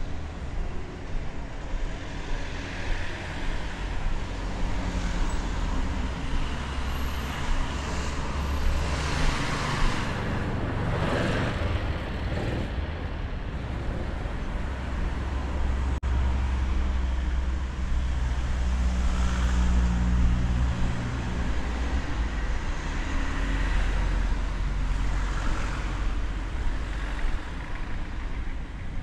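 City street traffic: cars and heavier vehicles running and passing, with a steady rumble. One vehicle passes louder about ten seconds in.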